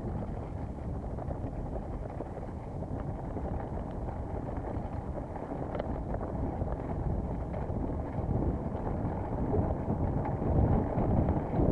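Wind buffeting the microphone with a steady low rumble, typical of a mountain bike being ridden on a trail, with a few faint clicks. It grows louder near the end.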